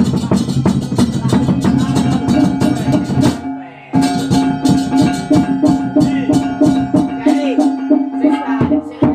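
Balinese baleganjur gamelan playing: fast, dense strikes on bronze gongs and kettle gongs with drums, the gong pitches ringing on. The ensemble breaks off briefly about three and a half seconds in and then comes back in.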